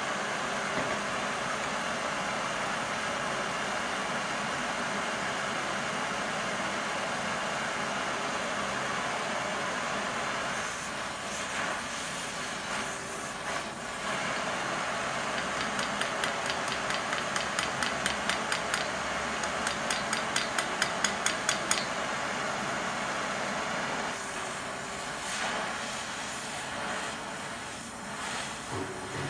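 Gas torch flame hissing steadily while heating a steel cutting-rule blade. Midway through comes a run of quick light taps, about four a second, for several seconds.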